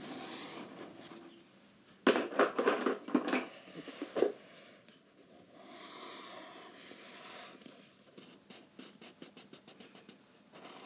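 Drawing on paper: a loud flurry of scratchy strokes from about two seconds in, then quicker, quieter short strokes near the end.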